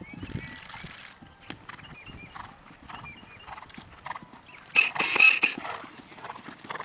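Hoofbeats of a show jumper cantering on sand arena footing, with a loud rushing burst lasting under a second about five seconds in.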